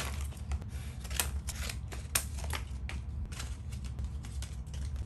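Scissors snipping the plastic tags off plastic clothes hangers, and the hangers clacking against each other as they are handled: a string of irregular sharp clicks over a low steady hum.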